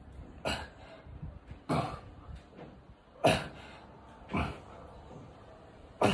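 A man breathing hard and forcefully while he strains through band-assisted planche push-ups: five sharp breaths, one every second or so.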